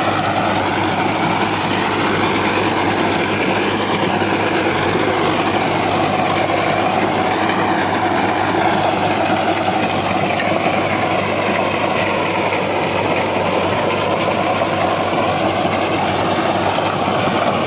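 Sonalika DI-750III tractor's diesel engine running steadily under load while it pulls a rotavator, whose blades churn dry soil.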